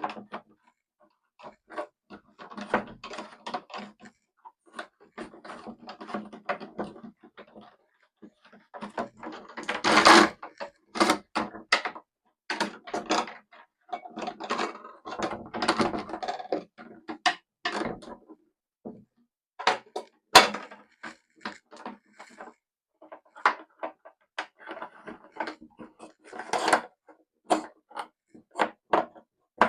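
Electrical cable being pushed and pulled through plastic conduit pipe and boxes: irregular clicks, knocks and rustling scrapes of cable and plastic being handled, with a few sharper knocks along the way.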